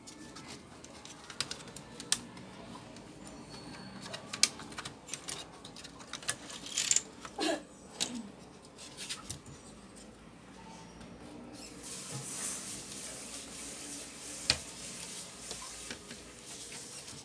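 Scattered clicks and light knocks of plastic parts and circuit boards being handled as a laptop's motherboard is worked loose and lifted out of its case.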